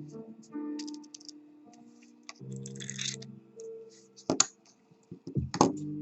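Soft background music with steady held notes, over small metallic clicks and scrapes of lock parts being handled as the lock's core is pushed out with a follower. Two louder sharp knocks come near the end.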